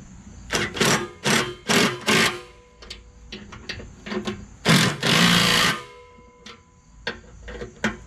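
Cordless impact driver with a socket extension loosening the carriage bolts on a snowblower's skid shoes, running in about four short bursts in the first couple of seconds and one longer, louder burst of about a second near the middle.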